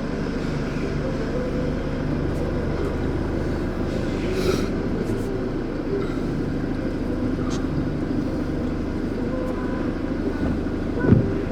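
Heavy haulage lorry's diesel engine running steadily at low speed as it creeps forward, with a brief hiss about four and a half seconds in and a short knock near the end.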